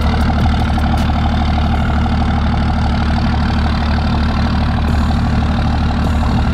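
Diesel engine of a lifted second-generation Dodge Ram pickup idling steadily, an even low rumble with a fine regular pulse.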